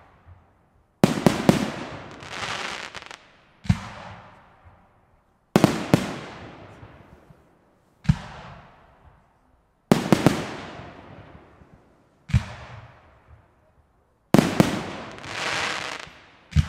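Aerial firework shells going off one after another, a sharp bang about every two to two and a half seconds, each trailing off in a rolling echo. Heavier bangs with a longer rumbling tail alternate with lighter ones.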